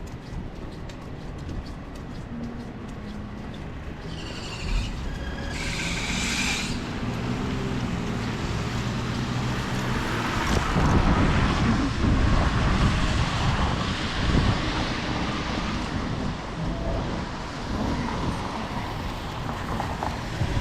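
Traffic on a rainy city street: a heavy vehicle's engine running, with a brief high squeal about five seconds in, then vehicles passing with a rush of tyre noise on the wet road, loudest around the middle.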